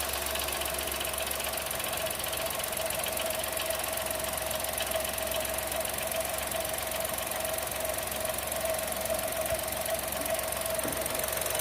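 Chevrolet Tracker's GM turbocharged three-cylinder engine idling steadily just after its cold first start of the day, with a steady whine and a fast, fine ticking clatter. This is the fairly loud cold-engine noise that owners ask about; it fades once the engine is hot, and a dealership mechanic judged it normal.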